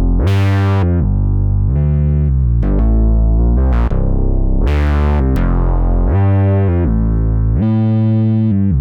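Roland JD-800 synthesizer (software version) playing a factory patch: a phrase of sustained notes with bright attacks over a deep bass.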